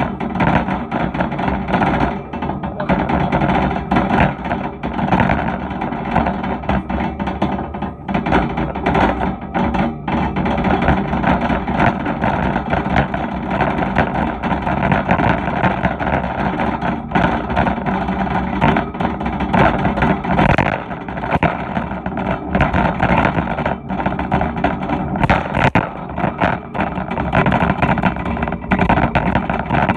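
Metal wire shopping cart rattling and clattering steadily as it is pushed and its wheels roll over the floor, with many short knocks.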